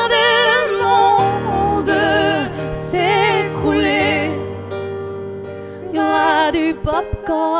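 A man and a woman singing a pop ballad in duet with wide vibrato, over chords from a Nord Stage 2 stage piano. Around the middle the voices drop out briefly and the piano carries on alone before the singing returns.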